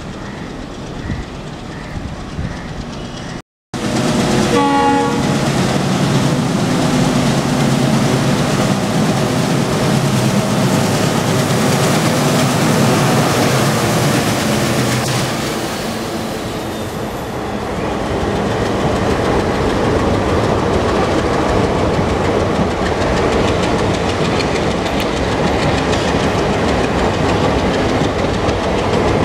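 A WDM-3A diesel-electric locomotive working uphill under load passes close by, its engine running loudly, with a horn sounding about four seconds in. Past the middle the engine note gives way to the coaches rumbling by, wheels clicking over the rail joints.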